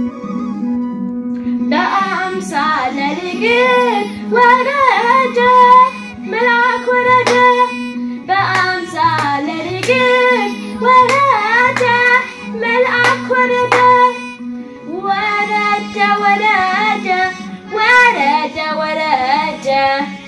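A boy singing an Amharic Ethiopian Orthodox mezmur (hymn) over an instrumental accompaniment of sustained notes with a low pulsing beat. The voice comes in about two seconds in and goes on in phrases with short breaks.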